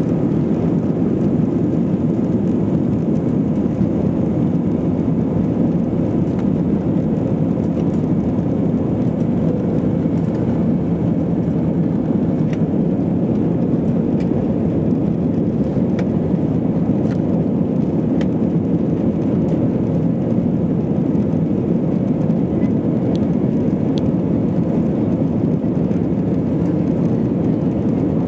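Steady, deep cabin noise inside an Airbus A320-232 at takeoff thrust, its IAE V2500 engines running hard through the takeoff roll, liftoff and initial climb.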